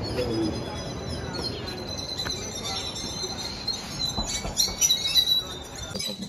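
Birds chirping and twittering in many short, quick calls, with a steady high trill running underneath.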